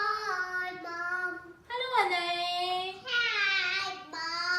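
A child singing in long held notes, about a second each, with slides in pitch between them.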